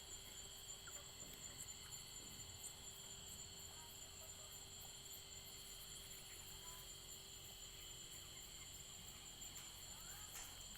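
Faint, steady high trilling of night insects, crickets, holding several even pitches.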